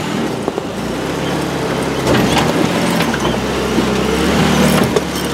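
Jeep Wrangler JK Unlimited's engine running at low revs as it rock-crawls, the note swelling a little in places, with scattered knocks and crunches of tyres and rock under the wheels.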